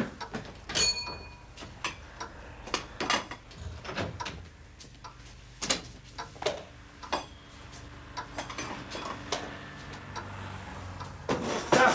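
A wooden front door being opened and shut, with a brief high squeak about a second in, followed by footsteps and a scatter of light knocks and clicks as things are handled and set down in the hall.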